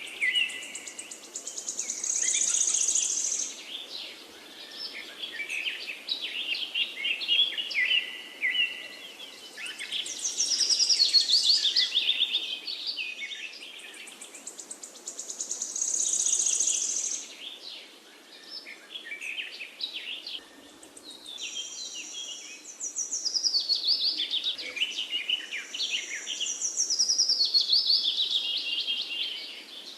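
Several wild songbirds singing, in rapid chirping and trilling phrases that overlap and come in waves every few seconds over a faint steady hiss.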